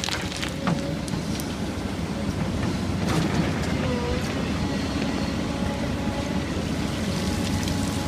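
Heavy diesel earthmoving machinery, a Kobelco 240 excavator working with a CAT 725 articulated dump truck, running steadily with a faint hydraulic whine and a few knocks and rattles, the loudest about three seconds in.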